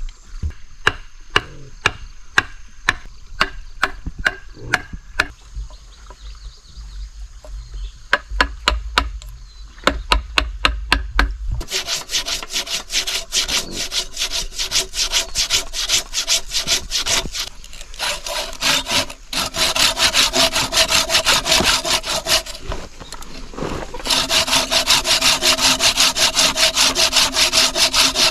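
A hatchet chipping into a wooden plank with sharp blows, two or three a second. About twelve seconds in, a folding hand saw takes over, cutting through a log with quick back-and-forth strokes, with one brief pause near the end.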